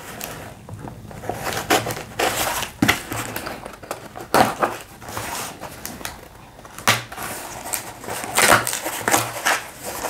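Utility knife slitting the packing tape on a cardboard shipping box in irregular scraping strokes, with tape and cardboard rustling, and the cardboard flaps being pulled open near the end.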